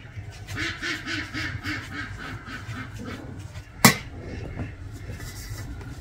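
A duck quacking in a quick run of about eight short calls, followed by a single sharp knock near the middle.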